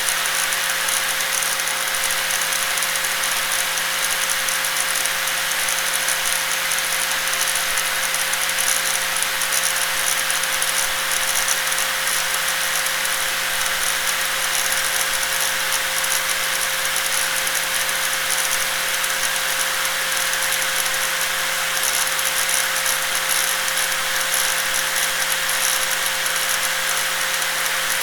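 Electric angle grinder running steadily, a constant high whir with one steady tone underneath.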